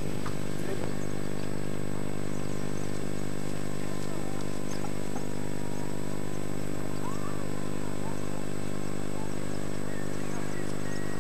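A steady low drone with many even overtones, unchanging throughout, with faint thin wavering sounds above it.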